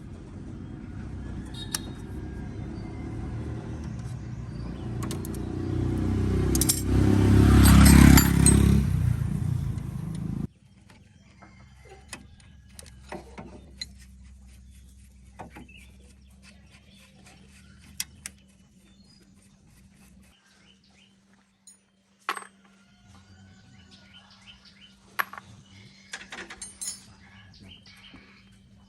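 A loud low mechanical rumble swells for about ten seconds, then cuts off abruptly. After it come scattered light metallic clinks and taps of hand tools on metal parts over a faint steady hum.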